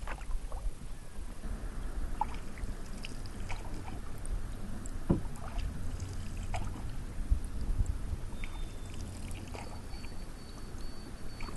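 Canoe paddle working lake water: small splashes and drips from the blade, scattered irregularly, over a low rumble.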